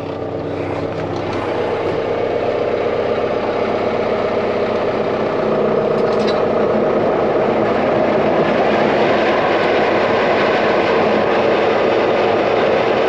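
Tractor engine running with its PTO driving a New Holland 7220 discbine mower on a test run after repair. The sound builds over the first five seconds or so as the mower comes up to speed, then runs steady.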